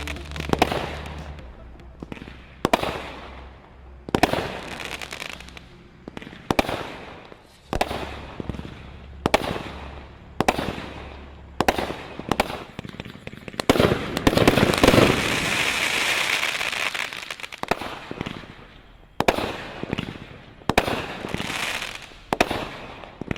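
Aerial firework cakes firing: sharp booming breaks about every second, each fading away, with a dense stretch of rapid crackling fire for several seconds about two thirds of the way through.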